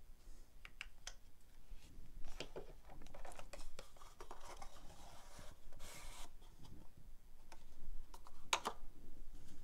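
Small cardboard box and paper inserts being handled: cardboard scraping and sliding, paper rustling, with scattered light clicks and one louder, sharper scrape near the end.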